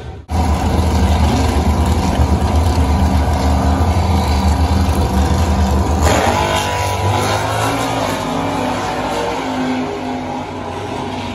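Two drag-racing cars' engines rumbling loudly on the starting line, then launching at full throttle about six seconds in, the engine note climbing and easing off as they run down the strip.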